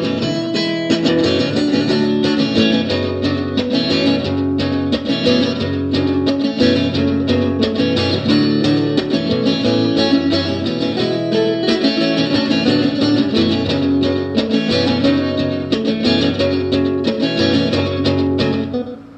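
Guitar music with quick plucked notes, which stops near the end.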